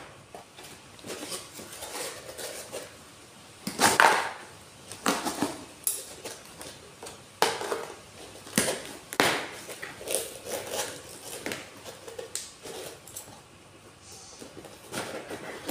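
Cardboard shipping box being handled and pulled apart by hand: irregular rustling and scraping of cardboard with sharp knocks and clicks, the loudest about four seconds in.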